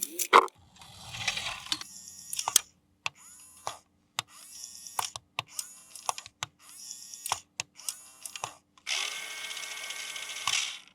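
Plastic toy parts and packaging being handled: a string of sharp clicks and short rustling bursts, then a longer steady rustle near the end.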